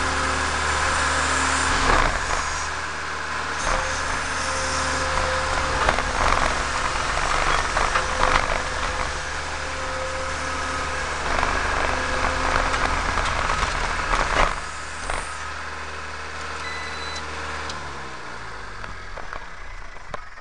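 Diesel engine of a New Holland C190 compact track loader running steadily, with several sharp knocks and clanks from the machine. Near the end the engine runs down and shuts off.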